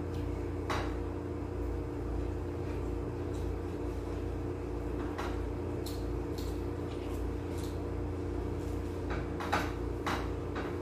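A spoon and fork scraping and clinking on a plate during a meal: scattered short clinks. Under them runs a steady low mechanical hum.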